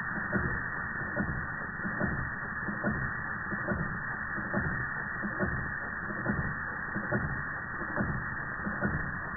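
Antique Georges Carette Model 175 toy steam plant under steam: a steady hiss with soft, regular pulses a little faster than one a second.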